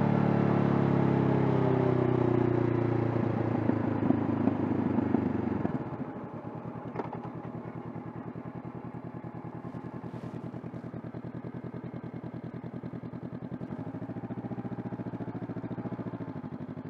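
Honda CB500F's parallel-twin engine falling in pitch as the bike slows, then settling from about six seconds in to a steady, evenly pulsing idle, with a slight rise in revs near the end.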